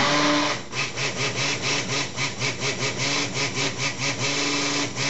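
Electric stick blender running in a pitcher of cold process soap batter, mixing in colourant. The motor sound pulses about four times a second for a few seconds, then runs steady.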